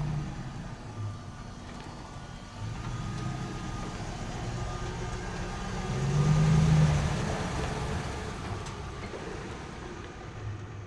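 Radio-controlled construction machines running, with a steady engine-like hum that grows louder about six seconds in and then eases off.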